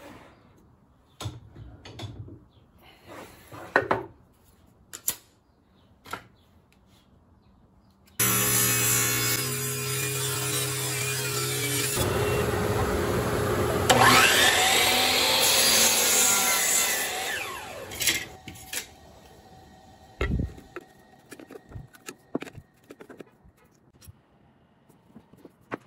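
Table saw cutting a blank of ash. For about eight seconds there are scattered knocks and clicks as the wood is handled on the steel table. Then the saw starts suddenly and runs, its tone changing as the blade goes through the wood, and it winds down at about 18 seconds. A few clicks of handling follow.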